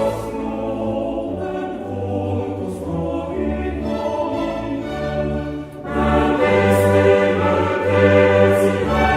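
Boys' treble choir singing a Polish Baroque psalm setting over instrumental accompaniment with held bass notes. The sound thins briefly about six seconds in, then returns fuller.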